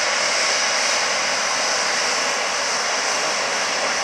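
Airbus A320-214's CFM56 turbofan engines running at taxi power as the jet rolls past: a steady high whine over an even rushing hiss.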